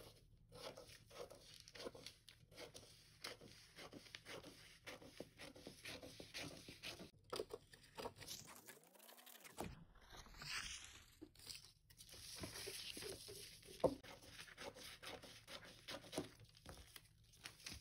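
Scissors cutting out a paper bodice pattern: faint, irregular snips with the rustle and crackle of the paper sheet being handled. A brief rising swish partway through and a sharper click later on.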